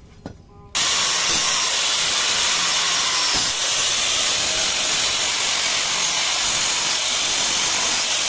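Electric angle grinder running steadily, its disc grinding into the steel tang and old handle of a curved dao blade. The sound is a loud, even grinding hiss that starts abruptly about a second in.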